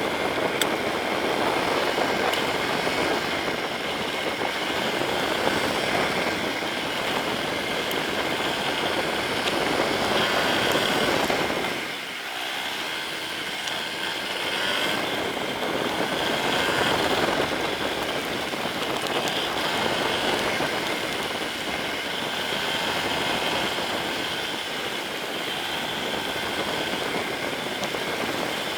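Yamaha Serow 250 air-cooled single-cylinder engine running under way, its pitch rising and falling with the throttle, under a steady rushing noise. It eases off about twelve seconds in, then picks up again.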